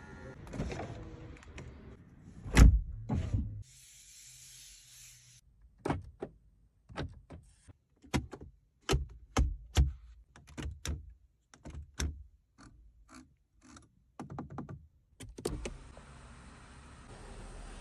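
Mechanisms of a BMW M850i: a heavy thunk about two and a half seconds in, a brief hiss, then a long run of sharp clicks and small thunks of the kind made by switches, latches and door mechanisms. A steady noise that may be a power-window motor begins near the end.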